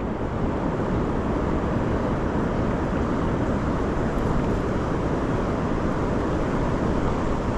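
Steady wind rumbling on the microphone, a dense, even low noise.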